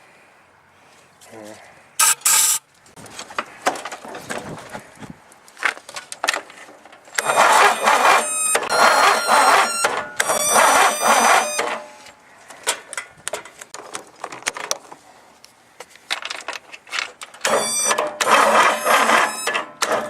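Starter motor cranking a Huskee riding mower's engine in repeated tries, with a high squealing whine. There is a short burst about two seconds in, then two longer spells of cranking a few seconds each, and the engine does not catch.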